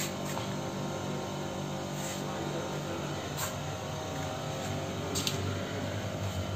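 A steady low hum in a small room, with a few faint clicks and knocks.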